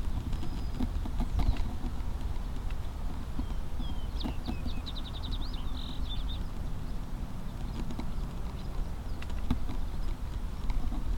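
Wind rumbling on the microphone, with scattered rustles and soft knocks. A songbird gives one short, rapid trill about four seconds in.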